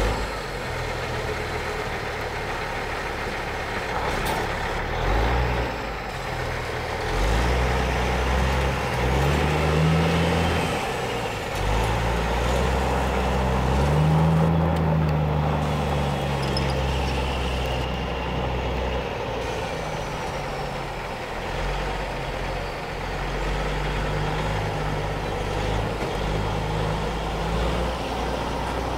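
Peterbilt 386 truck tractor's diesel engine running as the tractor drives around. The engine note rises as it accelerates, most strongly around ten and fourteen seconds in, then settles to a steadier run.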